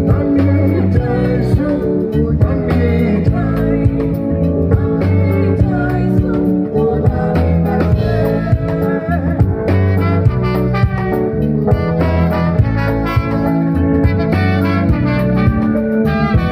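Live band music: drum kit and bass with voices singing, and a horn section of trumpet, trombone and saxophone that comes in strongly about ten seconds in.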